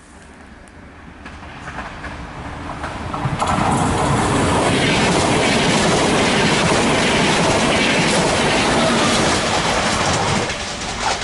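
Double-deck passenger train passing close by, wheels running over the rails with a clickety-clack of joints. It builds over the first few seconds, holds a loud steady rush, then falls away quickly near the end as the electric locomotive at the tail goes by.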